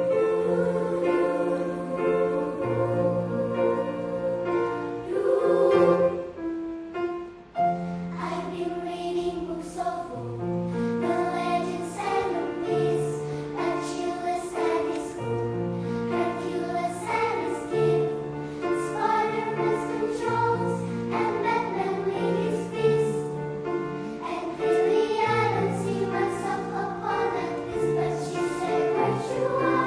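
A choir singing in several parts, holding long chords that shift together, with a brief pause about seven seconds in before the singing resumes.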